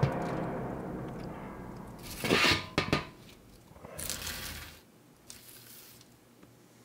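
Baking paper on a metal oven tray crinkling and rustling under a hand, in short bursts about two, three and four seconds in, after a fading ringing tone at the start.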